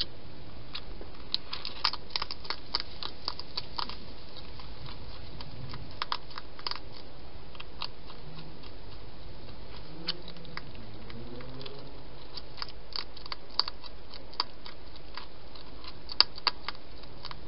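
A hedgehog eating, crunching its food in irregular runs of sharp crunches over a steady background hiss.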